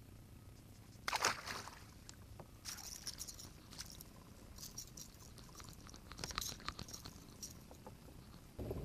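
A short splash about a second in, as a released bass drops back into the water, then scattered light scrapes and clicks on the kayak.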